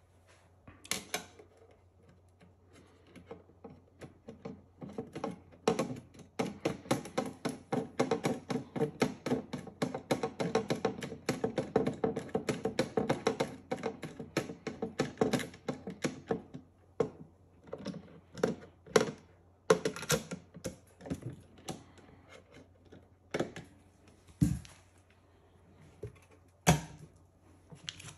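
Screwdriver turning screws at the hinge of an insulated door on a stainless steel 12 V oven: a dense run of rapid metallic clicks and scrapes for about ten seconds, then scattered taps, with two sharper knocks near the end.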